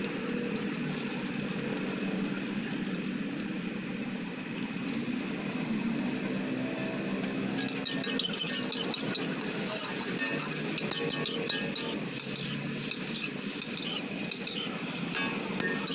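Metal spatula scraping and clanking against an iron wok as noodles are stir-fried, with sizzling. The scraping becomes rapid and busy about halfway through.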